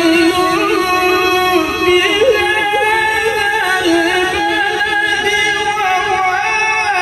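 A qari's melodic Quran recitation (tilawat): one unbroken voice holding long notes, decorated with small wavering turns, amplified through a PA system.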